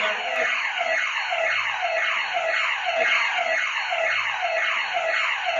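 House intrusion-alarm siren going off continuously: a loud, rapidly repeating falling sweep in pitch, about four sweeps a second.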